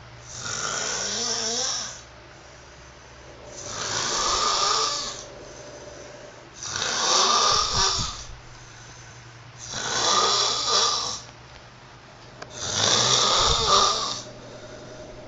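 Snoring: five long snores about three seconds apart, with quieter breathing gaps between them.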